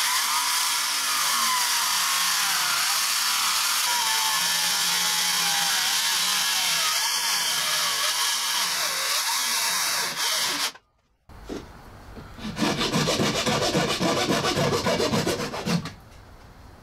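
Cordless jigsaw cutting through the thick laminated wooden keel, its motor pitch wavering as the blade loads. It stops abruptly about eleven seconds in, then sawing resumes with a fast, pulsing rhythm.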